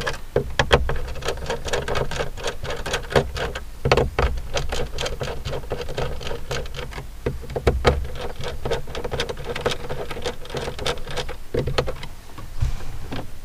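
Rapid, irregular clicking and tapping of a screwdriver working screws while the solar charge controller is fitted, over a steady low hum.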